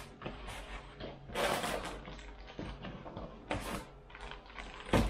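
Plastic packaging crinkling and cardboard boxes being handled and shifted, in several short bursts, with a sharp knock near the end.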